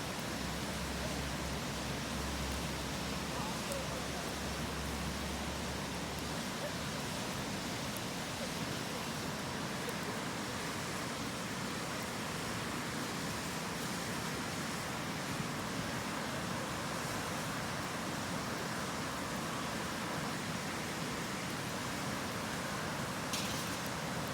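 Steady rush of a nearby river, with a low rumble for the first few seconds and a few faint crackles from a wood campfire, the clearest near the end.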